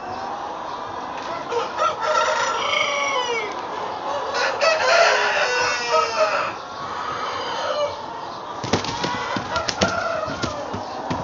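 Chickens in a poultry house: roosters crowing and hens clucking, busiest in the middle. A quick run of sharp clicks comes near the end.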